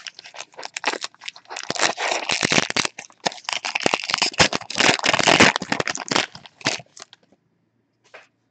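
Foil wrapper of a trading-card pack crinkling and crackling as it is torn open and handled, a dense run of crackles that stops about seven seconds in.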